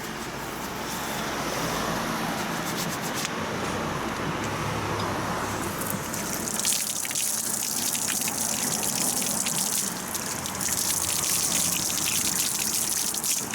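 Water running from a tap and splashing, becoming brighter and hissier about six and a half seconds in.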